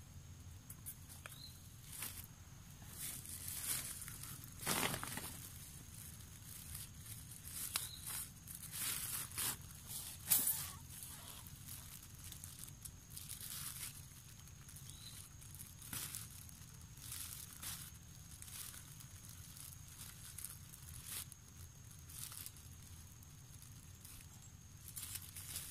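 Thin plastic bag crinkling and rustling as it is handled and tied by hand, in irregular short rustles.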